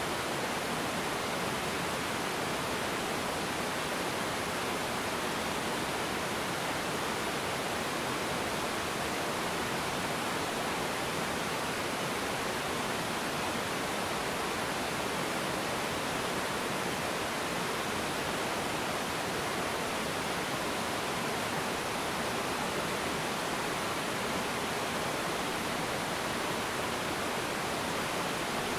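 A small river waterfall with water rushing steadily over a low cascade of rocks. It is an even, unbroken rush with no changes.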